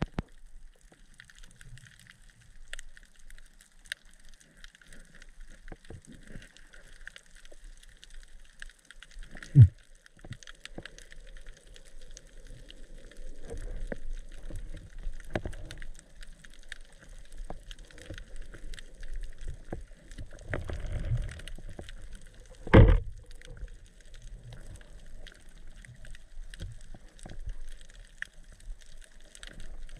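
Underwater ambience picked up by a camera in the sea: a constant fine crackling and hiss with low rumbles of movement. Two loud dull thuds stand out, one about ten seconds in and another about twenty-three seconds in.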